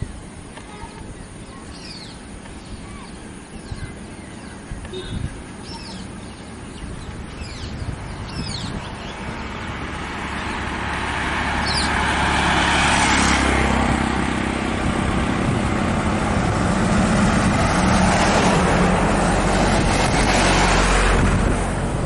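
Road traffic passing: the tyre and engine noise of vehicles swells up about ten seconds in and stays loud through a second pass, with a few bird chirps in the quieter first part.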